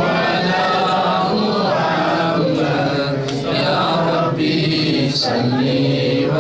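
A group of men chanting together in unison, a devotional Arabic chant of blessings on the Prophet (salawat), sung in long continuous lines.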